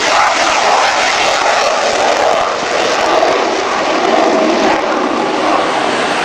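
F-14A Tomcat's twin Pratt & Whitney TF30 turbofans at full power in afterburner on takeoff: a loud, steady jet roar as the aircraft lifts off and climbs away.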